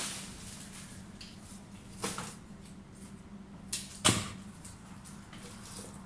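Leaves and stems being handled while arranging foliage: a brief rustle at the start, then a few sharp clicks and taps, the loudest a knock just after four seconds in.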